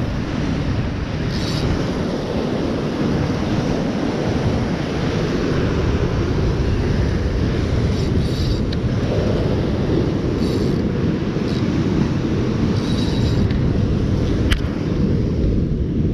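Wind buffeting the microphone over ocean surf breaking against lava rock. A few brief high rasps and a sharp click near the end come through it.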